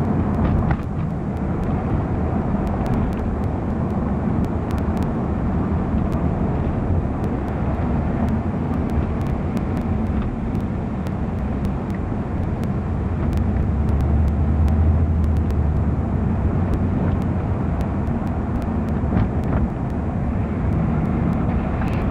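Steady low rumble of a car driving along a city street, engine and tyre noise with passing traffic, heard from inside the moving car; it swells for a couple of seconds about two-thirds of the way through.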